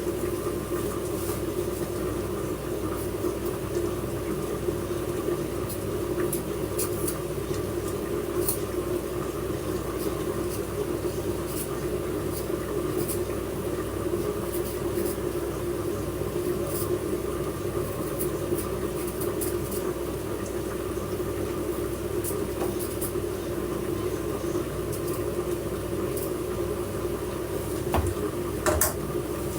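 Steady low mechanical hum, even in level throughout, with faint scattered ticks.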